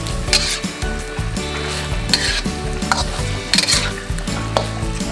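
Beef, mushroom and green pepper stir fry sizzling in a frying pan while it is stirred, with a louder swish of stirring about every second and a half.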